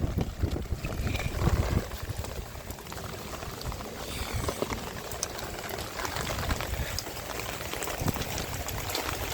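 Rainwater running and trickling through a French drain system, with rain falling and scattered light taps.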